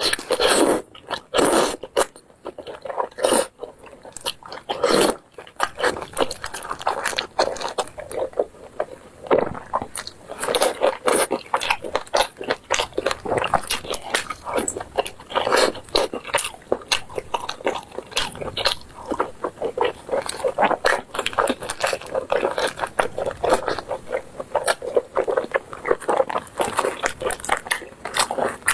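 Close-miked eating sounds of a person biting and chewing braised pork belly: a dense run of short, quick mouth clicks and chews with no pause.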